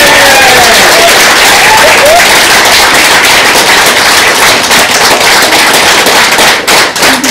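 Wedding guests applauding loudly and cheering, with whoops in the first couple of seconds. Near the end the applause thins into separate claps.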